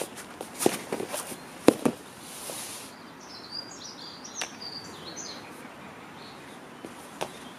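Two people grappling on foam mats: scuffs, clothing rustle and knocks, with a sharp thud a little under two seconds in as one is thrown down onto the mat. Birds chirp in the background a few seconds later.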